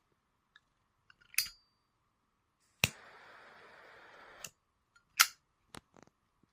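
Zippo 65827 double-torch butane lighter insert being worked: a metallic clink, then a sharp igniter click that starts the hiss of the butane torch jet, which runs for about a second and a half and stops with a click. Then a louder metal snap, like the lighter lid shutting, and a few light clicks.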